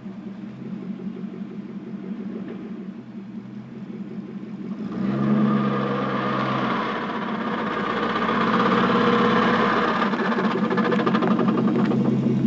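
1984 Porsche 928S V8 idling cold, then about five seconds in, as it goes into reverse, a loud ugly ratcheting clatter like a roller coaster going up a chain lift sets in over the engine and keeps on. The noise comes only in reverse and only when cold, and is taken as the sign of a failing automatic transmission that will need a rebuild or replacement.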